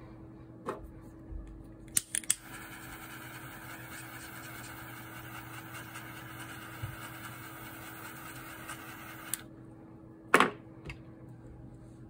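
Butane torch lighter clicked three times and lit, its flame hissing steadily for about seven seconds before cutting off suddenly. A sharp knock follows about ten seconds in.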